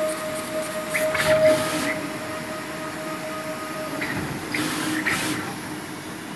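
Siplace X4 SMT pick-and-place machine running: a steady whine that stops about four seconds in, over a constant machine hum, with two short bursts of hiss about a second in and near five seconds.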